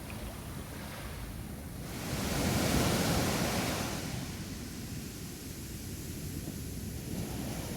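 Ocean waves breaking on a beach, one wave swelling and washing in about two seconds in before falling back to a steady wash, with some wind on the microphone.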